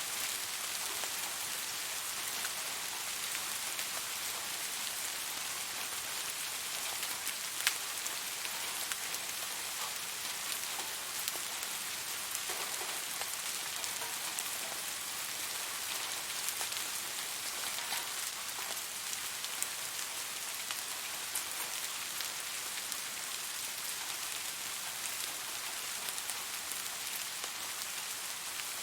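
Steady rain falling, an even hiss with many scattered drop ticks and an occasional louder drip.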